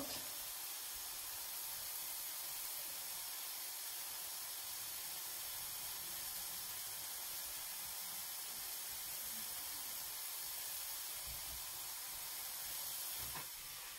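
Mushrooms sizzling in a hot pan, dry-frying without oil, a steady even hiss.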